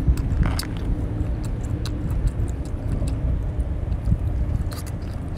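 Continuous low rumble with scattered small clicks of chewing and mouth sounds as a piece of sea snail meat is eaten.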